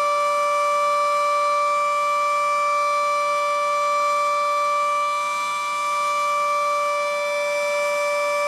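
Federal Sign & Signal Model 7B outdoor warning siren sounding its steady alert tone, holding a constant pitch without rising or falling.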